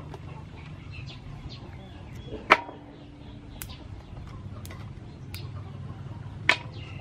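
Yardlong beans snapped into short pieces by hand: sharp, crisp snaps, two loud ones about four seconds apart with fainter ones between.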